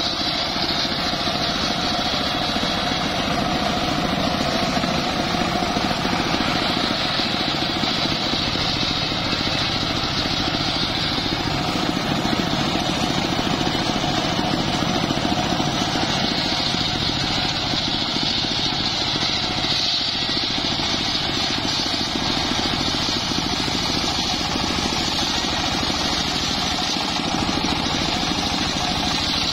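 Homemade belt-driven circular sawbench running steadily and ripping teak logs lengthwise, the engine drone mixed with the blade's high whine as it cuts, the whine swelling and easing from one stretch of cutting to the next.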